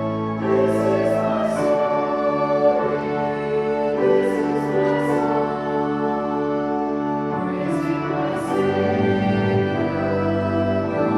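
Voices singing a slow hymn together over sustained keyboard accompaniment.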